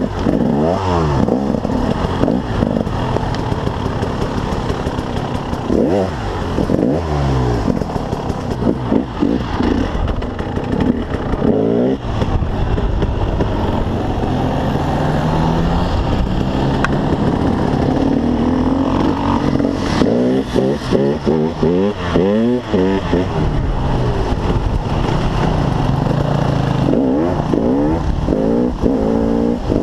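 KTM 300 EXC single-cylinder two-stroke enduro engine under way off-road, revving up and down over and over, its pitch rising and falling with each opening and closing of the throttle.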